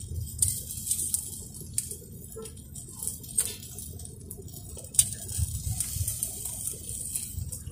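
Fish grilling on a metal grate over charcoal, with scattered crackles and clicks over a faint hiss and a low rumble; one sharper click comes about five seconds in.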